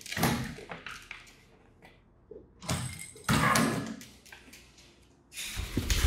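African grey parrot flapping its wings and scuffling on a desk as it tugs at a pair of headphones: three bursts of rustling, scraping noise, near the start, around three seconds in and near the end.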